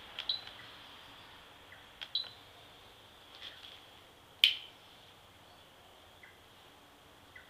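Quiet outdoor background with a few short bird chirps and a steady faint high hiss. A single sharp click, the loudest sound, comes a little past halfway, with two small ticks near the end.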